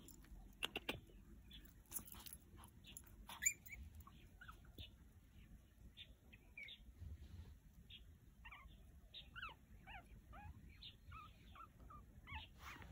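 Small Pomeranian puppies whimpering and squeaking: many short, faint high calls, coming thickest in the second half, with a few sharp clicks in the first few seconds.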